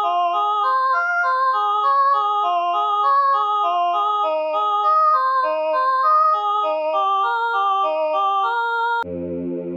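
Music: a quick melody of clean, steady stepped notes, several lines overlapping, with no beat or bass under it. Just after nine seconds it cuts suddenly to a fuller track with a low bass line.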